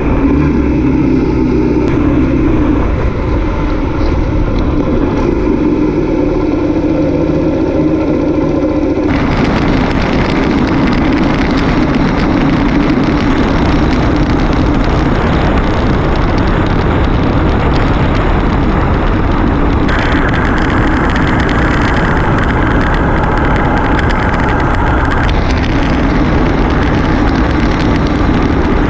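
Motorcycle engine running at road speed, its engine note clear for the first several seconds. About nine seconds in the sound switches abruptly to a loud, steady rush of wind over the microphone, with the engine underneath.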